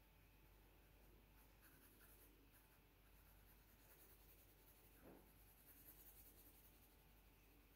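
Faint scratching of a graphite pencil shading on drawing paper, with a brief soft sound about five seconds in.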